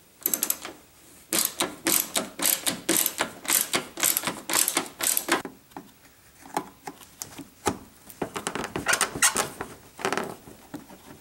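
Ratchet clicking in several runs of quick clicks with short breaks, backing out the screws and bolt that hold a piece above the radiator.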